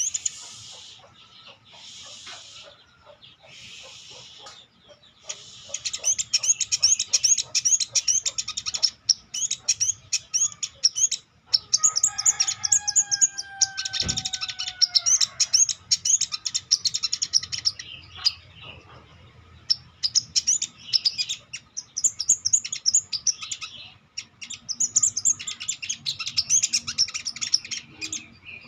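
Sogon (ontong) songbird singing in rapid, high-pitched chattering phrases of a few seconds each, broken by short pauses, with one longer falling whistle about halfway through.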